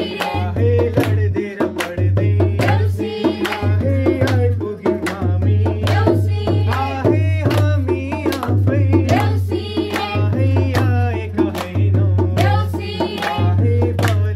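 A group of men and women singing a Nepali folk song to a madal hand drum, with hand clapping along.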